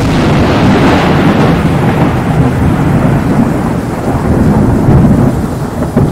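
Thunder rolling over rain as an intro sound effect: a loud, continuous rumble that starts suddenly, with a sharper crack near the end.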